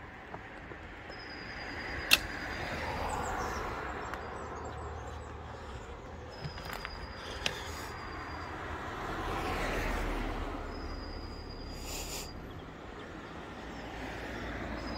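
Road traffic passing close by, two cars swelling up and fading away about three and ten seconds in, over a steady low rumble of wind and bicycle tyres on pavement. A single sharp knock about two seconds in is the loudest sound.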